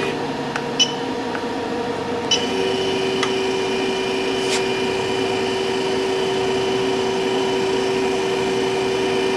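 Drive motor of an MK CopperHead orbital TIG weld head jogging the rotor to carry the tungsten around the tube: a click about two seconds in, then a steady motor whine, with a few light clicks.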